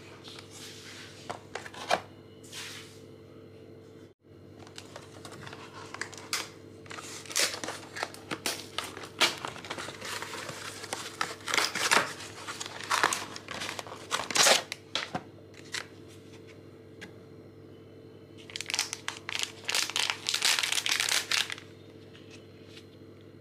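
Plastic food packet crinkling and being torn open by hand, in irregular crackly bursts, with a pause and a second burst of crinkling near the end. A steady low hum runs underneath.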